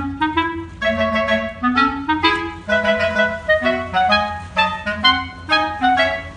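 Background music: a quick melody of short, separate notes changing several times a second, with a low steady accompaniment underneath.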